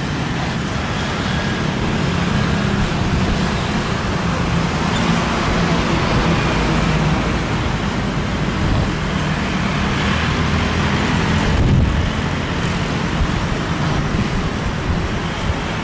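Steady jet engine noise: a business jet taxiing close by and an airliner landing on the runway behind it.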